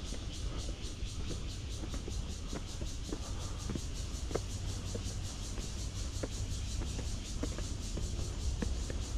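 Outdoor ambience on an exposed lookout: a steady low rumble of wind on the microphone under a constant high hiss, with a few faint ticks.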